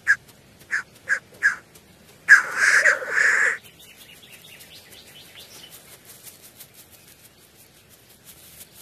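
Male black grouse calling on the lek: four short calls, then a loud, harsh hissing call lasting about a second, followed by faint high chirping.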